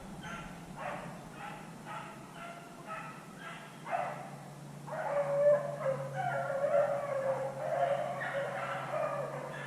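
Beagles baying as they run a rabbit: short barks about twice a second, then from about five seconds in longer, drawn-out bawls.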